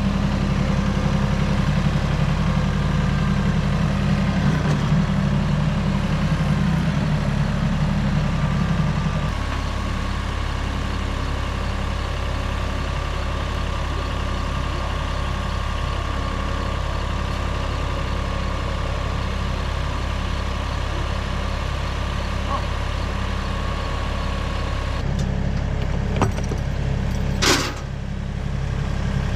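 Kioti compact tractor's diesel engine running, louder for about the first nine seconds and then settling to a steadier, slightly lower level. Two sharp knocks near the end, the second louder.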